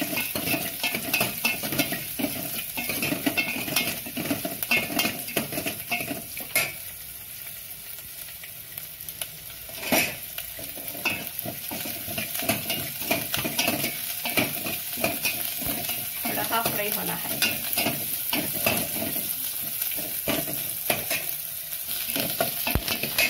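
Chopped onions, curry leaves and green chillies sizzling in hot oil in an aluminium pot while a steel ladle stirs and scrapes against the pot, with frequent light clinks and a sharper knock about ten seconds in. The onions are being half-fried for the tempering.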